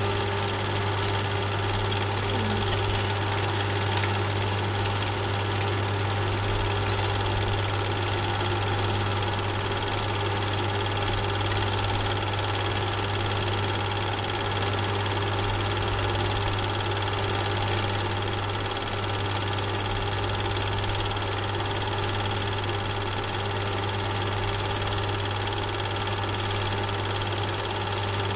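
Super 8 film projector running: a steady mechanical hum and whir from its motor and film mechanism, with one brief click about seven seconds in.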